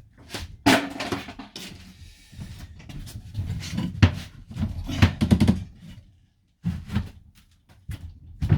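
Irregular knocks, thumps and scraping as interior parts are pulled loose and handled inside a van, with a short pause about six seconds in.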